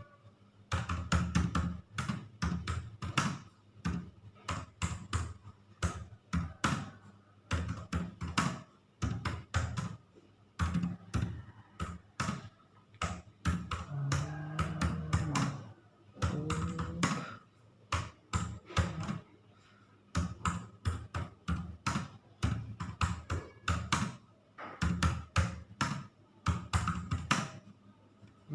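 Computer keyboard keys pressed one at a time with one finger, in short irregular runs of clicks with brief pauses between them.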